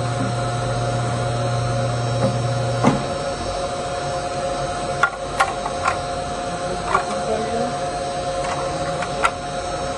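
Zumex commercial orange juicer: a steady low hum cuts off with a click about three seconds in, followed by several sharp plastic clicks and knocks as its clear plastic parts are pulled out and lifted off.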